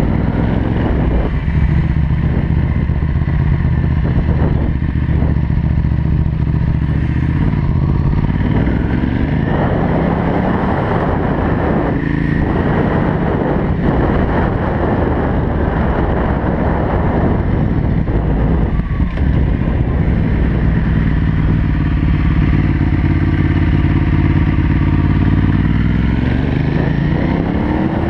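Ducati Hypermotard SP 821's L-twin engine running through a Termignoni full race exhaust while riding at low speed. Its pitch rises as it picks up speed through the gears about a third of the way in, holds steadier through the middle, and climbs again near the end.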